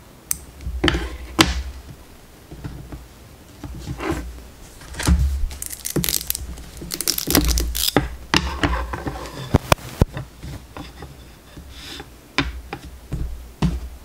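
Close handling noises of hand embroidery: a few sharp snips of small embroidery scissors, rustling of cotton fabric, and irregular clicks, clacks and dull knocks as a plastic embroidery hoop and the cloth are handled on a wooden table.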